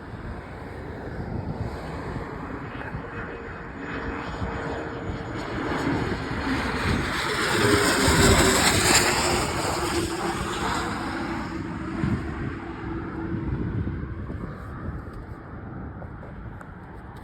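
An airliner passing by: its engine noise builds to a peak about eight seconds in and then fades, with a steady tone that drops a little in pitch as the plane goes past.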